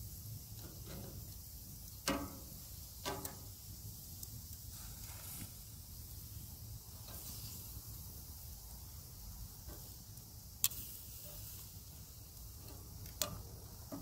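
Metal tongs clicking and scraping against an iron grill grate while chicken gizzards are turned: a few sharp, irregular clicks. Under them runs a faint, steady sizzle of the meat grilling.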